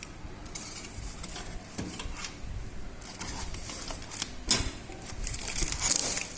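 Handling noise from unpacking microwave accessories: packaging rustling with scattered small clicks and knocks, one sharper knock about four and a half seconds in.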